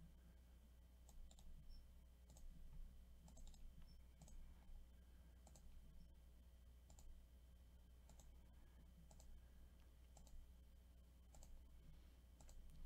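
Faint computer mouse clicks at irregular intervals, some in quick pairs, over a low steady electrical hum.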